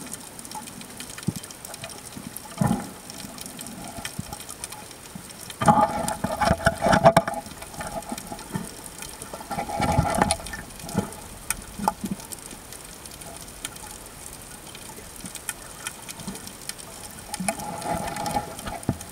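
Water sloshing and bubbling against an underwater camera housing just below the surface, with several louder irregular bursts of splashing and bubbling, the longest about six seconds in.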